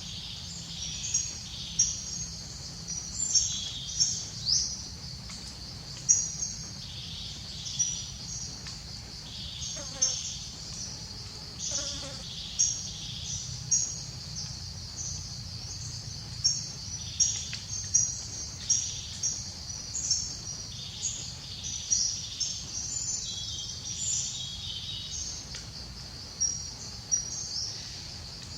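Outdoor ambience: a steady high insect drone with many short, high bird chirps repeating over it, and a low rumble underneath.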